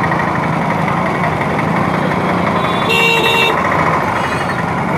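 Dense, slow motorcycle and scooter traffic, many small engines running close by, with a vehicle horn sounding once for about half a second around three seconds in.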